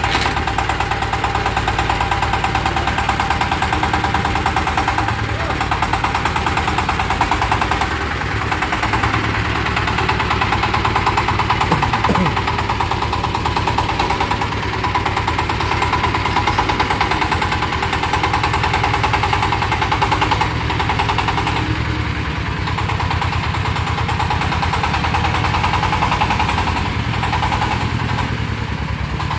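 Single-cylinder diesel engine of a self-propelled mobile bandsaw vehicle running steadily, with a fast, even knocking beat.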